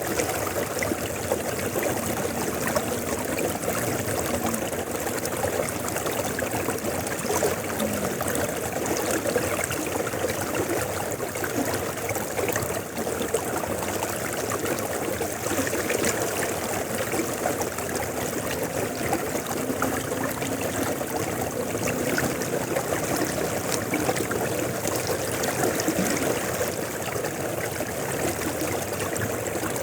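A river flowing steadily, an even, unbroken rush of water.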